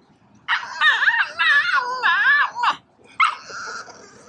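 Cavalier King Charles spaniel whining and crying in wavering, rising-and-falling yelps for about two seconds, then after a short pause a steadier whine. This is separation distress: the dog is upset at its owner walking away.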